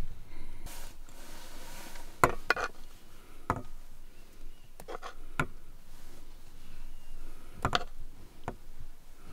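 Metal spoon clinking against a steel pan and a stainless steel cup as hot soup is spooned out: about eight light, sharp clinks spread unevenly, with a brief scraping noise about a second in.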